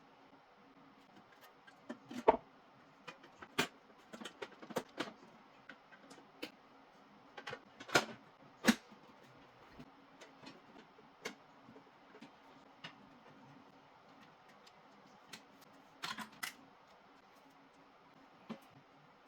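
Irregular clicks and light knocks of computer parts being handled, the loudest about two, eight and nine seconds in, over a faint steady hum.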